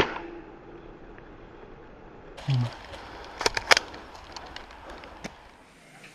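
Airsoft rifle firing: one loud sharp crack at the very start, then a quick cluster of several sharp clicks about halfway through and a single click near the end.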